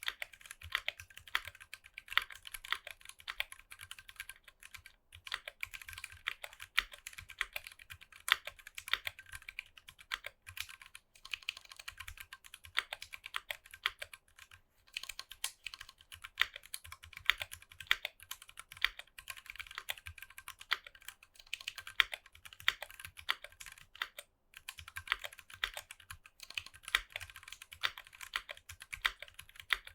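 Fast, continuous typing on a Tofu 60 mechanical keyboard with Novelkeys Box Royal tactile switches and PBT keycaps: dense keystroke clacks, broken by a few brief pauses.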